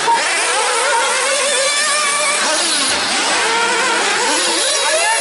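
Several 1/8-scale nitro buggies' small two-stroke glow engines racing together. Their high-pitched whines overlap, rising and falling as they rev and ease off.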